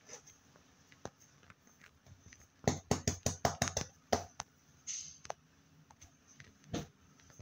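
Hands working a lump of homemade slime: a quick run of about a dozen small clicks and taps, then a short rustle and one more tap near the end.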